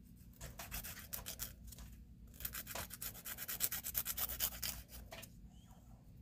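Nail file rubbing across a fingernail tip in quick back-and-forth strokes, filing away the excess of a nail polish strip. The strokes come in two runs, the second longer and louder.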